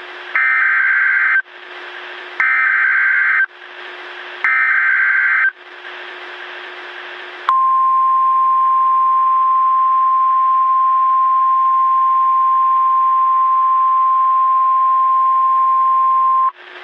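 Emergency Alert System header: three bursts of SAME data tones, about a second each with short gaps between them. Then a single steady alert tone is held for about nine seconds; its one pitch fits the NOAA Weather Radio 1050 Hz warning tone. A steady radio hiss with a faint hum lies under it all.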